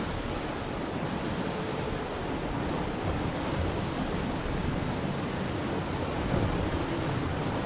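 Steady rushing noise of an IMOCA racing yacht sailing fast through the sea, water and wind rushing past the hull.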